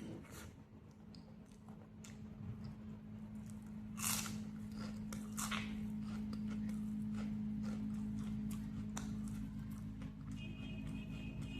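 A person chewing and biting into food, with a few sharp crunches, over a steady low hum. A short, high, steady tone sounds near the end.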